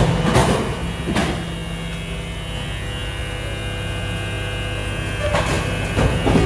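BYD electric garbage truck humming steadily at a fixed pitch. A few short knocks and clatters come about a second in and again near the end.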